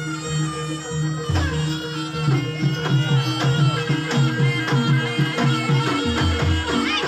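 Traditional Javanese-style ensemble music accompanying a barongan dance: quick, steady hand-drumming under held, ringing notes, with a shrill reed wind melody over the top.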